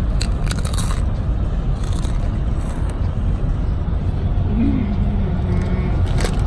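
A steady low rumble like car engine and road noise heard inside a cabin. Over it come crisp crunches of potato chips being chewed, once near the start and again near the end.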